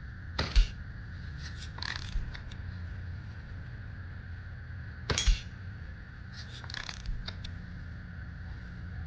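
Daisy Model 105 Buck spring-air BB rifle fired twice, about five seconds apart, each sharp shot followed by lighter clicks and metallic ticks as the lever is worked to cock it again.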